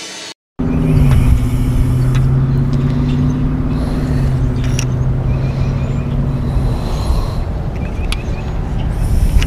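A motor vehicle's engine running with a steady hum that dips slightly in pitch about a second in and stops about seven seconds in, over a continuous low rumble and a few light clicks.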